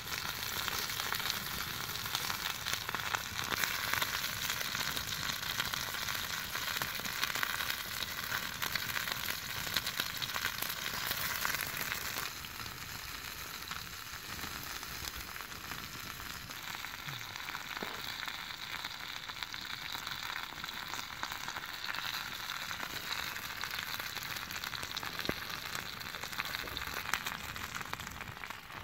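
Chicken wings sizzling on a fire-heated flat stone over a wood fire: a dense, steady crackle that drops a little in level about twelve seconds in.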